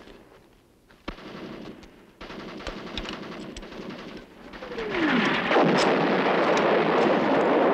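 Battle sound effects for an attack on a camp: scattered gunshots, then about four and a half seconds in a falling whistle like an incoming shell, leading into loud, continuous gunfire and blasts.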